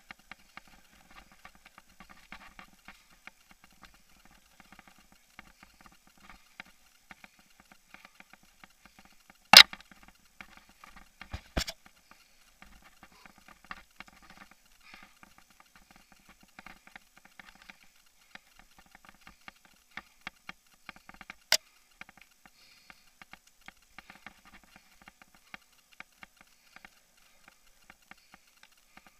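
Mounted action camera rattling in its mount as a mountain bike rides rough dirt singletrack: a steady stream of small clicks and clatter, with sharp knocks about ten, eleven and a half, and twenty-two seconds in, the first the loudest.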